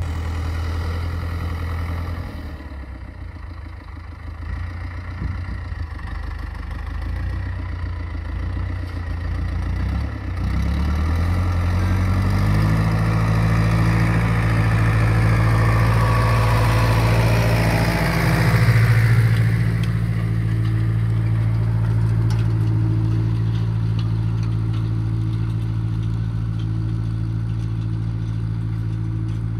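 Ursus C-385 tractor's four-cylinder diesel engine running under load while pulling a cultivator through tilled soil. Its steady drone steps up and grows louder about a third of the way through, is loudest just past the middle, then eases slightly.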